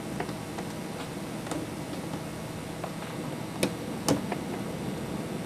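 A few separate sharp clicks, the two loudest about three and a half and four seconds in, over a steady low room hum: most likely a floppy disk drive and its disk being worked at to get the disk out.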